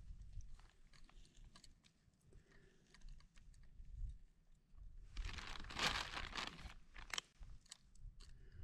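Crunching and crinkling as food is crumbled by hand into a camping pot, with scattered small clicks and a denser run of crackling about five to six and a half seconds in.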